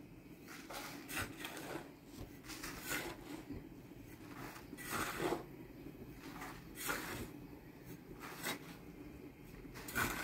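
Small hand trowel scraping and scooping through a dry mix of sand, gravel and cement on a plastic sheet, in repeated short strokes at irregular intervals.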